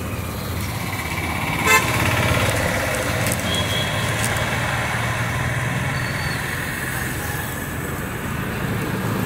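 Road traffic going by, with engine rumble swelling and fading as a vehicle passes. A vehicle horn gives one short toot a little under two seconds in, the loudest sound.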